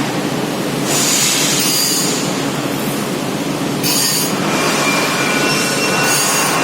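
Industrial teeth grinding machine at work: a steady grinding rush over a low hum, with a high metallic screech rising three times, about every two seconds, as the wheel bites.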